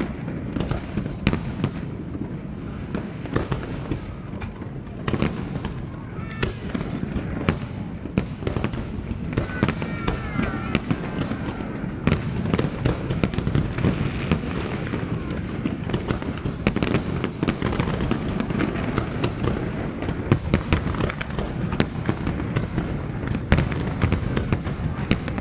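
Fireworks display: many aerial shells bursting in quick succession, a continuous barrage of deep booms and sharp bangs with no let-up.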